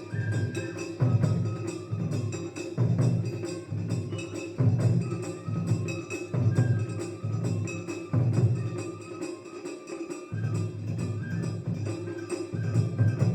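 Music with a steady beat of drum and knocking percussion under a short repeating melody.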